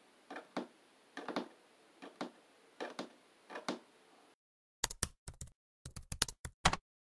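Fingers drumming on a tabletop, a soft double tap about every 0.8 s, five times. About five seconds in, a quick burst of computer keyboard typing, a rapid run of sharp clicks lasting about two seconds.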